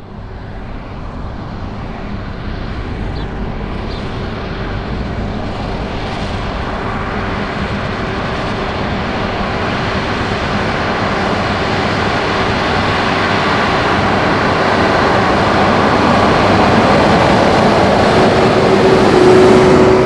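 John Deere 7R.330 tractor pulling a Krone HDP2 big square baler, the tractor engine and baler running steadily under load and growing steadily louder as the rig comes closer, with a steady hum throughout.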